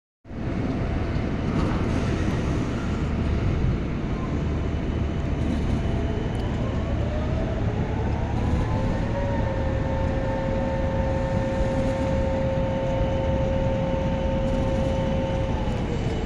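Low, steady mechanical rumble, like a large engine running. About eight seconds in a whine rises, holds steady for several seconds, then falls away near the end.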